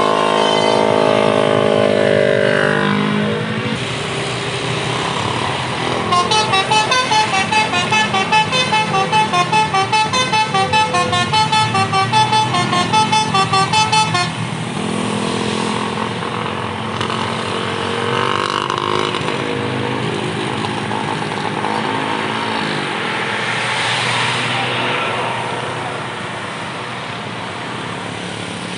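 Bus-mounted Basuri telolet air horn: a long sustained multi-trumpet chord, then about six seconds in a fast melody of short notes, about three a second, for some eight seconds. After that comes vehicle engine noise with a few rising and falling sweeps.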